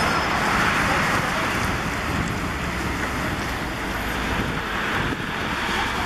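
City bus driving past, its engine and tyre noise mixed with wind buffeting the microphone in a steady rush.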